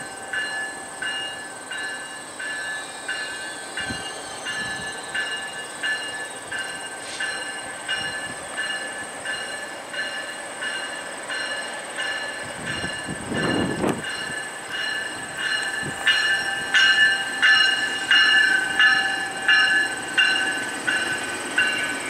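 GO Transit commuter train coming through, its bell ringing steadily about twice a second. The bell grows louder as the leading cab car nears and stops shortly before the end, with a brief deeper swell about halfway through.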